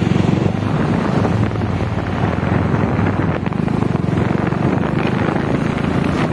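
A moving vehicle's steady engine and road noise, with wind buffeting the microphone.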